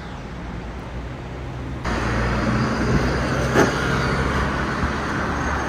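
Steady outdoor hum and traffic-type background noise at a DC fast-charging bay, which rises suddenly about two seconds in. A single sharp click a little past the middle comes as the CCS charge connector is unplugged from the car's port.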